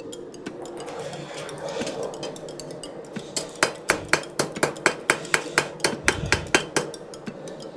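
Blacksmith's hammer striking hot 3/16-inch round steel stock on an anvil: a quick run of about sixteen ringing blows, four to five a second, starting about three seconds in, over a steady low hum.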